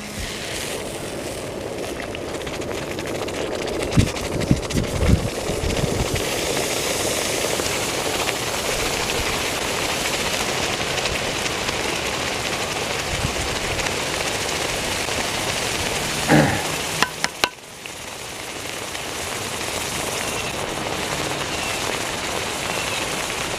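Canned chicken and its broth boiling violently and sizzling with a steady hiss as molten aluminum sits in the can, throwing off steam, with a few low pops about four to five seconds in.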